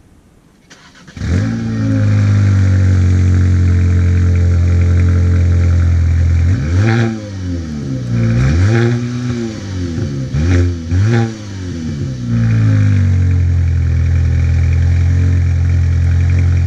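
Volkswagen Passat's 1.8 TSI turbocharged four-cylinder started, with a brief flare of revs, then idling through a stock exhaust with the muffler deleted. It is revved four times in the middle, each rev rising and falling, before settling back to idle.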